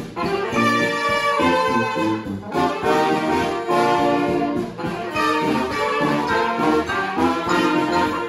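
Brass band playing live: trumpets and trombones in full ensemble, with moving horn lines throughout.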